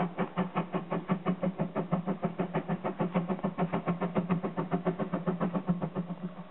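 Narrow-gauge steam locomotive working hard, its exhaust beating in a fast, even rhythm of about six or seven chuffs a second over a steady low hum.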